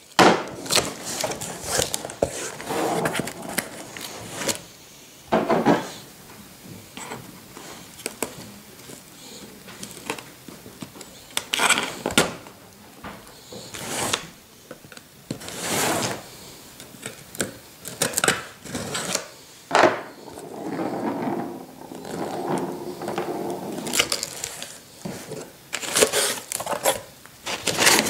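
A cardboard shipping box being opened and handled by hand: scrapes and knocks of cardboard and flaps come in separate short bursts with quieter gaps between them. Brown packing paper crinkles near the end.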